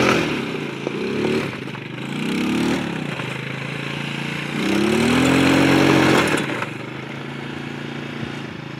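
Keeway 150 cc quad bike's engine revving up and falling back several times as it is ridden, with a longer, louder rev about halfway through, then settling to a lower steady run near the end.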